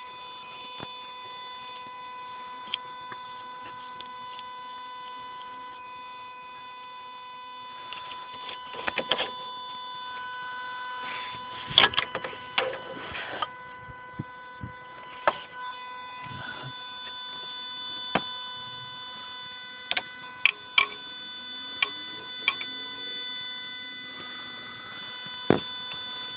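A steady high-pitched whine with several overtones, the weird noise from a Renault Clio 172, with irregular clicks and knocks over it, bunched in two spells.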